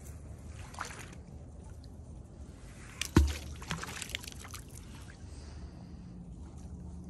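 A magnet on a rope dropping into a river with one loud splash about three seconds in, followed by a second or so of smaller water splashes.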